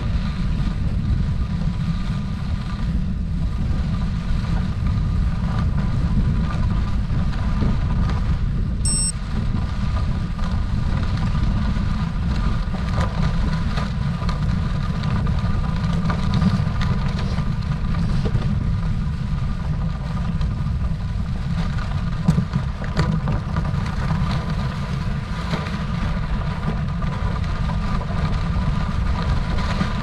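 Steady low rumble of tyres on a gravel dirt road mixed with wind noise, with a faint steady whine underneath, from a vehicle travelling along the road.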